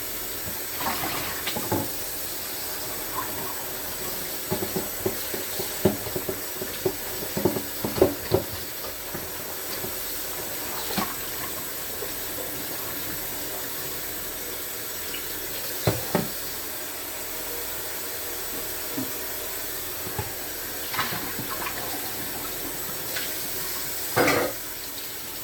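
Kitchen sink tap running steadily while hands are washed under it, with a scatter of light knocks and clatters, densest a few seconds in and with a louder one near the end.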